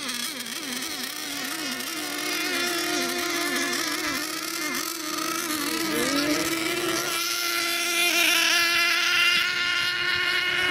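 Several nitro-powered radio-controlled racing boats running on the water, their small glow engines whining and changing pitch as they circle. Over the last few seconds one grows louder and holds a steady high whine as it runs at speed.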